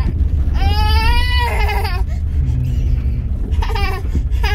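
Windshield wiper blade squeaking across the car's glass in short pitched squeals, one about a second long near the start and a shorter one near the end, over the steady low rumble of the car heard from inside the cabin.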